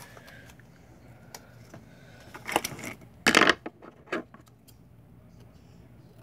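Duct tape being pulled off the roll: two short ripping bursts a little past halfway, among light clicks and handling noises.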